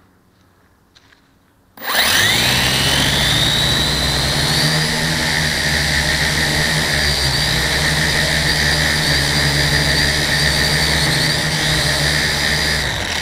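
A small battery-powered electric motor starts about two seconds in. Its whine rises quickly in pitch as it spins up, then holds steady with a low buzz underneath. It stops just before the end.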